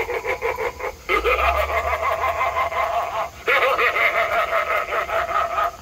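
Young Crouchy animatronic clown playing its recorded clown voice and laughter through its small built-in speaker, with the volume turned up all the way. A new phrase starts about a second in and another about three and a half seconds in.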